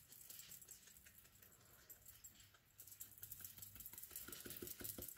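Faint dabbing and rubbing of a small foam ink dauber along the edges of a paper page, with a quick run of light taps near the end.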